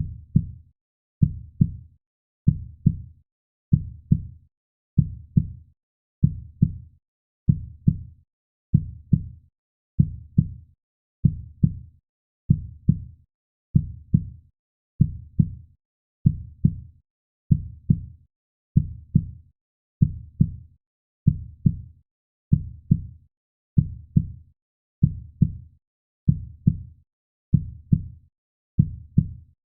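Heartbeat sound effect: a slow, steady, deep lub-dub double thump, repeating evenly about once every second and a quarter.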